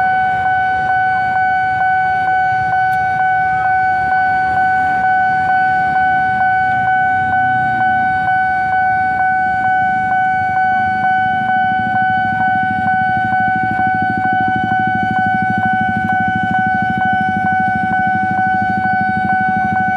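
Railway level-crossing warning bell ringing continuously, a steady ringing tone struck a little under twice a second, as the crossing signal stays active. Motorcycle engines idle underneath and grow louder from about halfway.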